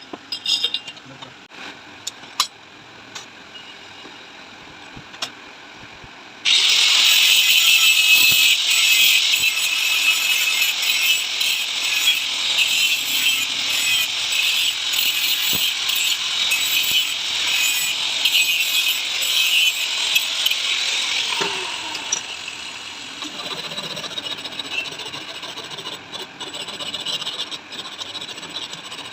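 Electric welding on a motorcycle rear shock absorber: a loud, harsh crackling hiss that starts abruptly several seconds in, runs steadily for about fifteen seconds, then carries on more quietly. Faint clicks and taps come before it.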